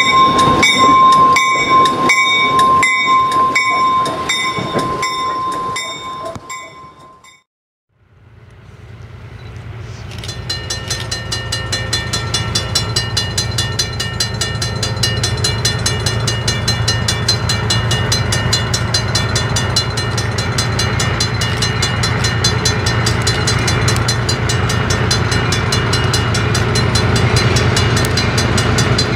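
A locomotive bell ringing in steady, evenly spaced strokes as a diesel locomotive rolls past; it fades out about six seconds in. After a short break a grade-crossing bell rings rapidly over the low, steady running of an approaching diesel locomotive, which grows louder and then holds.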